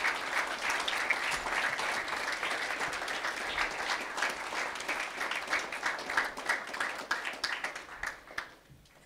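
Audience applauding, a steady patter of many hands clapping that tails off and stops near the end.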